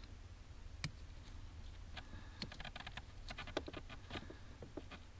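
Faint, scattered clicks and taps of a small plastic light socket and LED bulb being handled and fitted by gloved hands under a car's dashboard.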